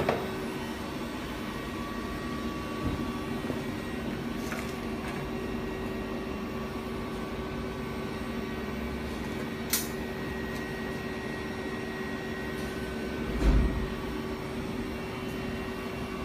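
Steady mechanical hum with several held tones, broken by a few sharp clicks and a dull thump about two-thirds of the way through.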